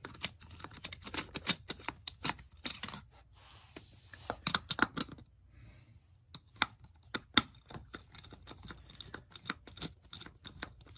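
Irregular clicking and rattling of a plastic wheel wrench turning the wheel nut on an RC monster truck, in quick clusters with a short pause a little past the middle.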